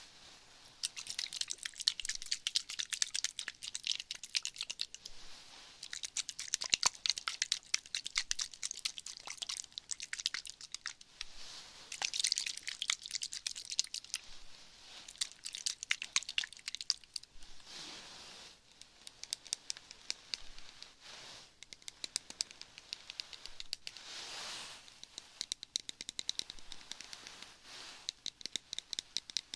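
ASMR ear-cleaning sounds close to the microphone: dense crackly scratching and rubbing, in strokes with short pauses and a few softer smooth rushing passes.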